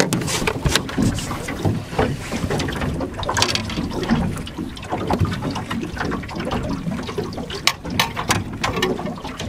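Small waves lapping and slapping against the hull of a small open boat, with wind noise on the microphone and a few sharp knocks.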